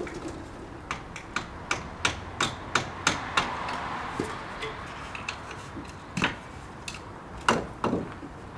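Hammer blows on the steel parts of a car's front suspension: a quick run of about eight strikes, then a few more after a pause.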